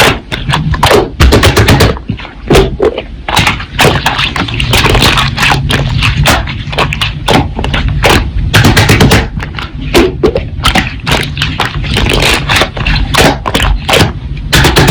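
Slime being squeezed and pressed by hand, making rapid, irregular pops and clicks.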